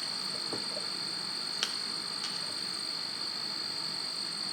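A steady high-pitched electronic tone, held at one pitch, with a faint click about one and a half seconds in.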